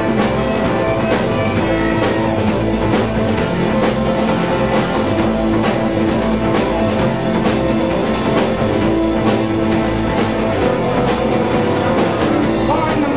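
Live rock band playing an instrumental passage: a drum kit keeping a steady beat under strummed guitars.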